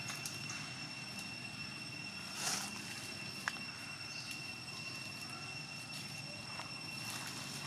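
Steady high-pitched insect drone of a forest, two even tones held without break. A brief rustle about two and a half seconds in and a single sharp click about a second later.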